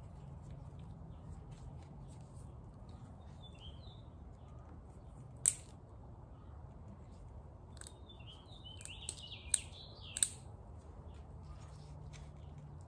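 Plastic wire sheathing being handled and worked over oxygen-sensor wires: light rustling and several sharp plastic clicks, the first about five seconds in and a quick cluster a few seconds later. Faint bird chirps sound in the background.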